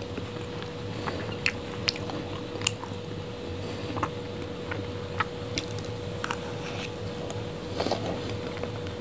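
Close-miked chewing of soft, moist chocolate cake eaten from a spoon: wet mouth sounds with scattered sharp smacking clicks, over a faint steady hum.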